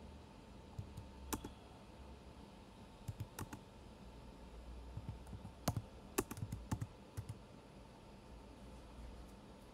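Typing on a computer keyboard: scattered keystroke clicks in short bursts with pauses between, the busiest run about six to seven seconds in, over a faint low hum.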